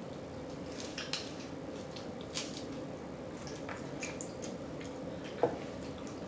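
Close-miked mouth sounds of eating: scattered wet smacking and chewing clicks, with a slightly louder smack about five and a half seconds in.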